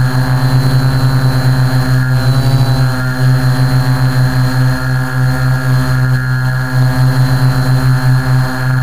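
Quadcopter's electric motors and propellers humming steadily, picked up close by the onboard camera, with a thin high whine above and a rapid wavering in level.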